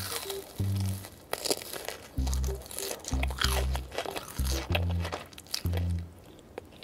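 Crisp, crackly crunching of bites into a fried cheesy corn dog's batter crust, chewed close to the microphone. It plays over background music of short repeated bass notes, and the crunching thins out near the end.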